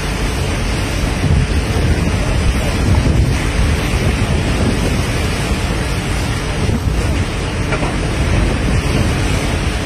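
Steady wind buffeting the microphone over the rush of water from a moving destroyer's bow wave and wake.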